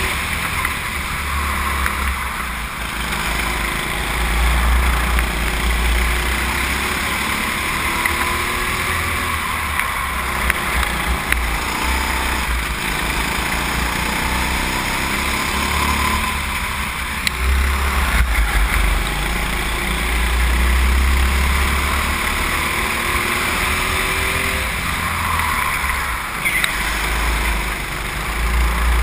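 Go-kart engine running at speed, heard from a camera mounted on the kart, its pitch rising and falling through the corners, with a heavy low rumble underneath.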